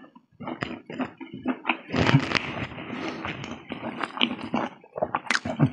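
Close-up eating sounds of someone eating with his fingers: irregular wet chewing and lip smacks, with fingers scraping food together on a plate.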